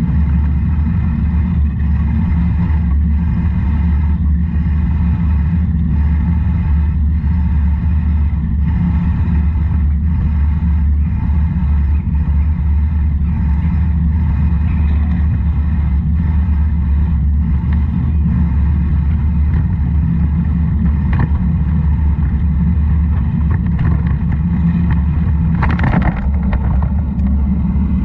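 Steady, loud wind rushing over the microphone as it rolls downhill, mixed with tyre noise on wet concrete. There is a brief rougher rush about two seconds before the end.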